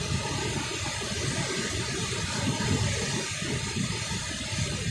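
Steady rush of water pouring through a dam spillway.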